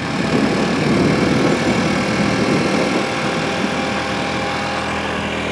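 A vehicle rolling slowly: steady engine noise with tyre rumble, the engine's low hum standing out more near the end.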